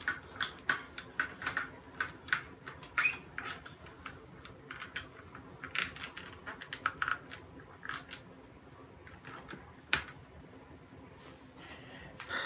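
Irregular light clicks and taps from hands handling plastic parts of a phone-and-light mount being fitted, with one sharper click about ten seconds in.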